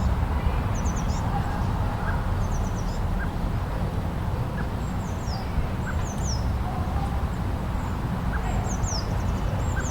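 Steady low rumble of blizzard wind, with birds calling over it in short, high, falling chirps in quick groups of two or three, repeated about every second.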